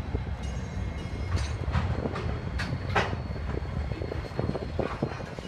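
Diesel locomotive 8102 shunting container wagons through a rail yard: a steady low rumble with irregular clanks and knocks from the wagons, the loudest about three seconds in.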